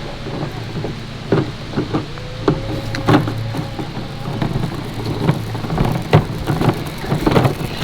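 Irregular knocks, scrapes and rustling close to the camera microphone over a steady low rumble, like the camera being bumped and handled.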